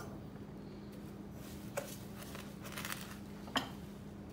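Hands rubbing and sprinkling coarse sea salt onto a slab of raw beef, with soft gritty rustles twice in the middle. About three and a half seconds in, a single sharp metallic clink as the stainless steel pot of salt touches down on the plate on the kitchen scale. A low steady hum runs underneath.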